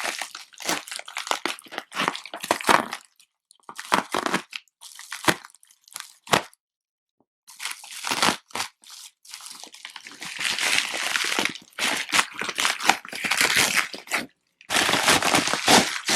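Shipping package being torn open by hand: irregular spells of tearing and crinkling packaging with short pauses, longer and denser in the second half.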